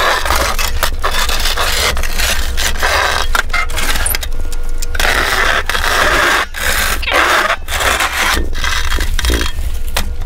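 Scraper blade of a homemade wheelchair snow blower attachment scraping over a snowy concrete driveway in rough, uneven bursts, over a steady low motor hum.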